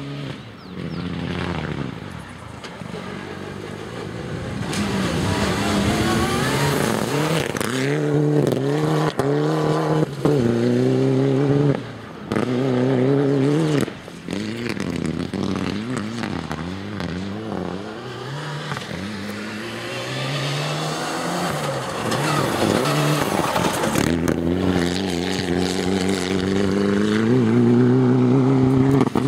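Rally car engine at full throttle on a dirt stage, climbing in pitch through the gears again and again with a sudden drop at each shift, loud as the car passes close.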